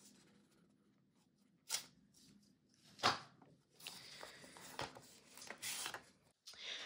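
Paper envelope slit with a utility knife and pulled open: soft paper rustling and crinkling, with two sharp crisp crackles about two and three seconds in, then cards sliding out of the envelope near the end.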